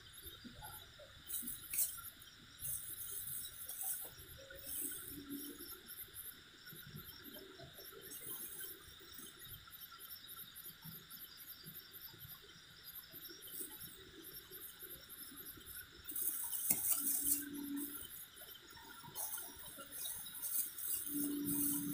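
Crickets and other night insects chirping steadily in a fast, even pulse, with short bursts of rustling and scraping now and then as hands work powder on dirt ground.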